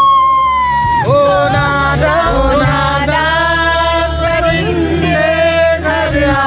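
Live stage concert: a male vocalist sings a Hindi song over amplified band accompaniment with steady bass. He holds one long high note for about the first second, then moves into a winding melody.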